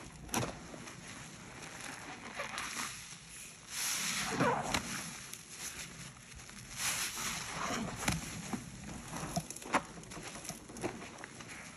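A large cellulose sponge squeezed and rinsed in a basin of sudsy water: wet squelching, sloshing and foam crackling, swelling louder twice in the middle.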